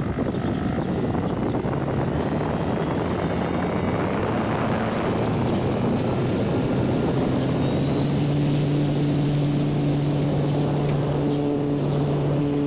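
Electric motor and propeller of a homemade radio-controlled FT Simple Cub seaplane running steadily. A high motor whine rises slightly, over a dense rush of noise, and a lower propeller hum grows stronger about halfway through.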